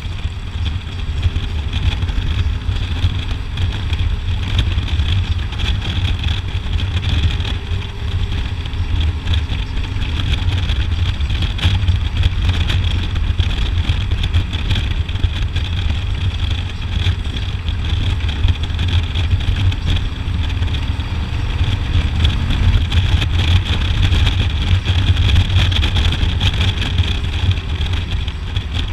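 A Harley-Davidson Road Glide's V-twin engine running at a steady road speed, with wind rushing over the microphone.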